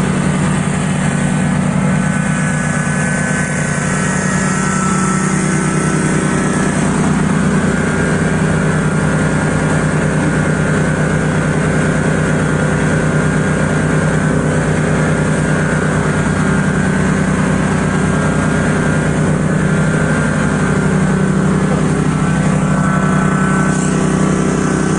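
Small gasoline lawn-mower engine running steadily at one constant speed.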